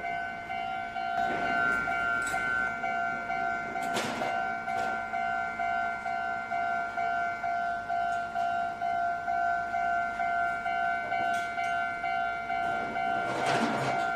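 Japanese railway level-crossing warning bell ringing, an electronic two-tone ding repeated evenly and quickly without a break. A few brief rushes of noise come and go over it.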